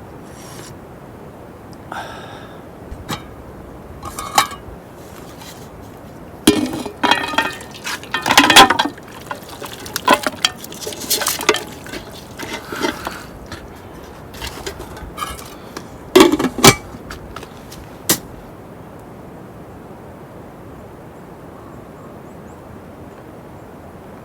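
Scattered clinks and knocks of hard objects being handled, some sharp and ringing, over a steady faint hiss; they stop about three-quarters of the way through.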